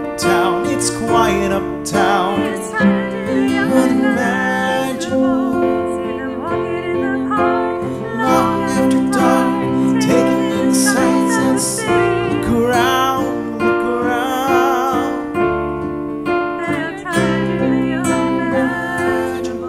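A digital piano and a nylon-string classical guitar accompany a man and a woman singing a slow ballad, with long held notes and vibrato in the voices. The music grows quieter near the end.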